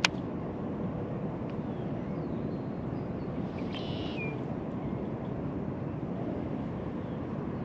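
Steady low rumble of wind on the microphone outdoors, with a sharp click at the very start and a short bird call about four seconds in.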